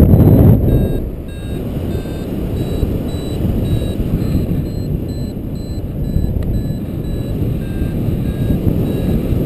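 Paraglider's variometer beeping in short tones about twice a second, the pitch shifting from beep to beep, which signals the glider climbing in lift. Wind rushes over the microphone throughout, loudest in the first second.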